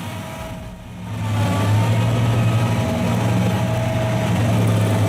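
A heavy machine's engine running steadily with a low hum, growing louder about a second in and then holding even.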